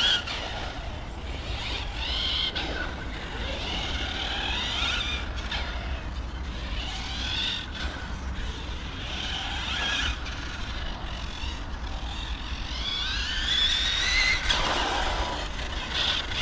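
Brushless electric motor of a Hobao Hyper 10SC 1/10 RC short-course truck whining as it drives a lap at a distance. The whine rises and falls again and again as the truck speeds up on the straights and slows for the corners, with its longest climb near the end.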